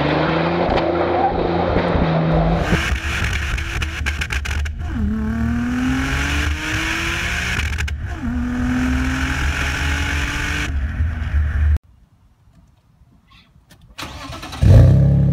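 Audi A6 Avant accelerating hard through the gears: the engine pitch climbs, drops at an upshift about eight seconds in and climbs again, then cuts off abruptly. After a couple of seconds of near silence, a BMW 525i's inline-six starts up loudly near the end.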